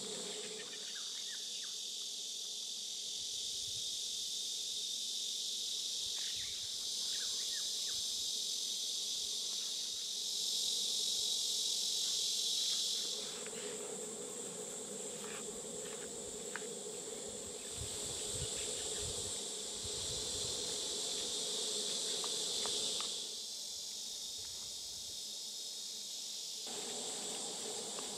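Crickets chirping in a steady, high-pitched chorus that shifts in strength a few times, with faint scattered clicks and soft knocks underneath.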